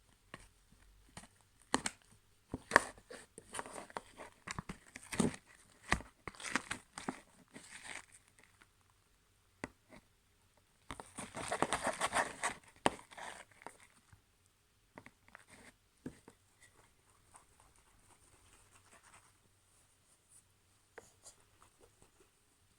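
Slime being kneaded and stretched by hand: irregular sticky clicks and crackling pops, with a denser spell of crackling about halfway through.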